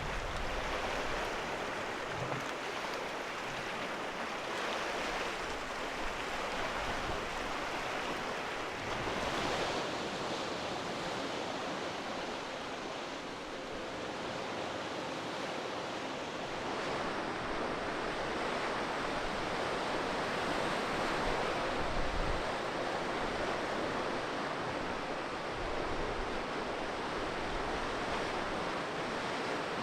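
Sea surf washing on the coast: a steady rushing wash of waves that swells and eases gently.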